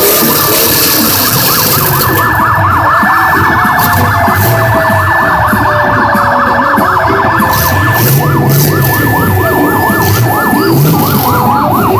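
Several emergency-vehicle sirens sounding at once: a fast yelp warbling about three times a second, a steady high tone that cuts off about two-thirds of the way through, and slow falling wails near the start, over a crowd's noise.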